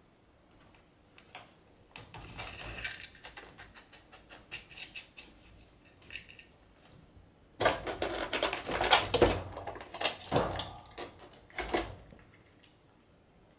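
Cat rummaging on a pet cage's wooden slatted floor, the slats clicking and knocking as it paws and noses at them while searching for spilled food. Light scattered clicks give way past the middle to louder clattering for about three seconds, with one more knock near the end.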